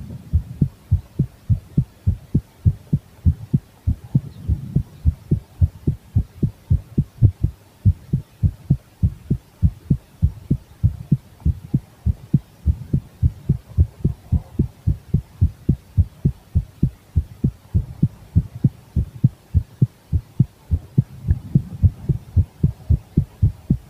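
A woman's heartbeat picked up by a microphone against her chest: a steady run of low thumps, about three a second.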